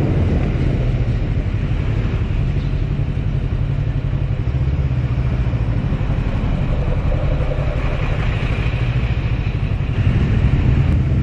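Bristol Veloce 500 motorcycle's engine running steadily while being ridden at low town speed, with wind and road noise mixed in.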